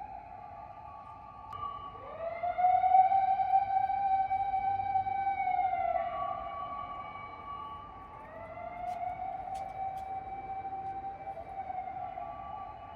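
A siren wailing, which the owner takes for a fire engine's. It rises about two seconds in, holds a steady pitch to about six seconds and falls away, then rises again near eight seconds and fades near twelve. The first wail is the loudest.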